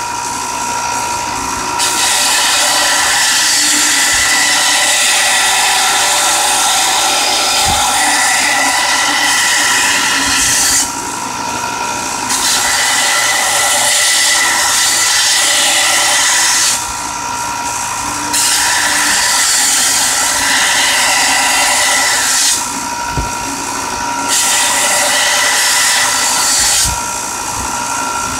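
Vertical belt sander running steadily while a steel blade is pressed against the belt to grind its edge: four passes of a few seconds each, each a loud grinding hiss, with only the motor and belt hum in the short gaps when the blade is lifted.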